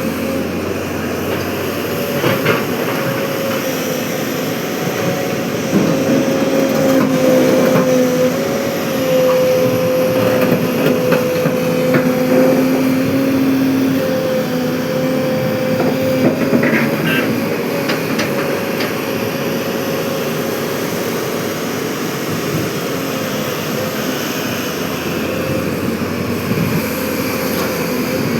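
Hydraulic excavator working, its diesel engine running with a steady droning tone that grows louder for several seconds about a third of the way in, with scattered knocks and clanks.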